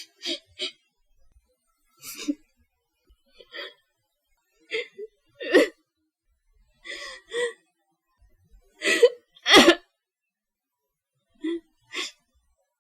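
A person crying softly: short sobbing breaths, gasps and catches of breath that come in about a dozen separate bursts with silence between them, the loudest pair about three-quarters of the way through.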